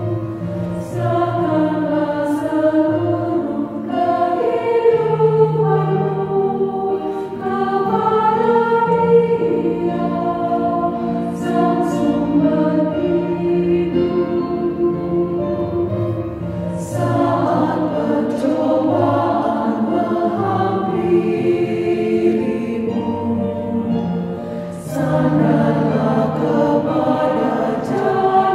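Women's choir singing an Indonesian hymn, mixed from individually recorded singers, with sustained sung notes and crisp 's' consonants on the words.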